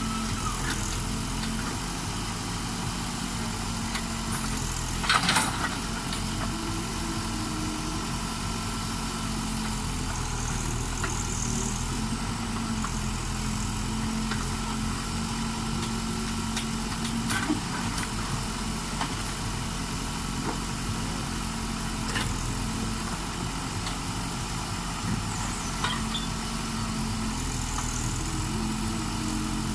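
Case backhoe's diesel engine running steadily, its note stepping up and down as it works. A loud knock comes about five seconds in, with a few lighter knocks later.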